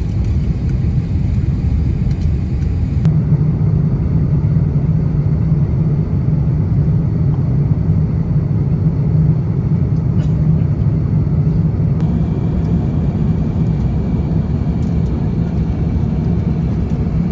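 Steady low rumble inside the cabin of an Airbus A350-900, from the engines and airflow, growing a little stronger about three seconds in.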